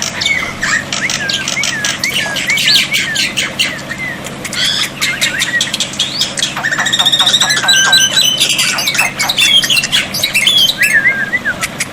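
Black-winged starling (jalak putih) singing a dense, varied song of harsh squawks, rapid clicks and squeaky rising and falling whistles, with a fast trill a little past the middle.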